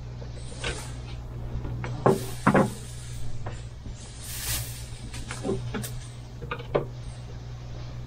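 Scattered clicks and knocks, with a brief rustle, as hands handle cables and terminal connections at a solar charge controller mounted on a trailer wall; the loudest knocks come about two seconds in.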